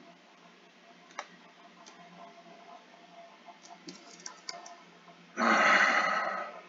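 Scattered keyboard keystroke clicks as a BASIC program line is typed and edited. Near the end comes a louder rushing burst lasting about a second.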